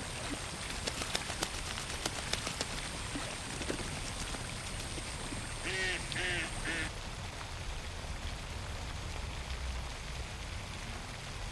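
A duck quacking a quick run of about four quacks roughly six seconds in, over a steady wash of pond ambience with small water ticks and splashes in the first few seconds.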